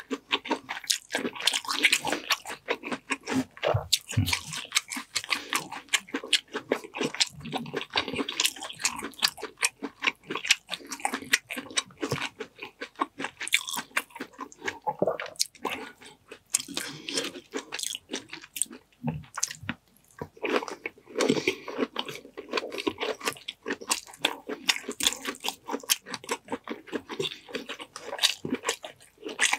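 Close-miked chewing and biting of butter-garlic shrimp and sweet corn eaten by hand, with many small, irregular wet clicks.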